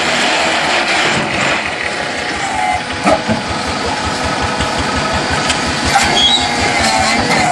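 LY6-30 mobile concrete block machine running, with a fast, even pulsing and a few sharp knocks.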